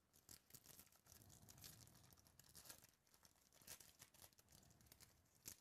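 Foil wrapper of a Topps baseball card pack being torn open and crinkled by hand: a faint, irregular run of crackles and rips, with the sharpest crackle near the end.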